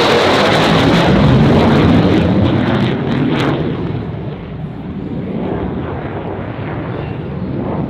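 F-35B Lightning II's single F135 turbofan jet engine as the jet flies a display pass overhead: loud rushing jet noise, strongest for the first three seconds, then easing off as the jet draws away.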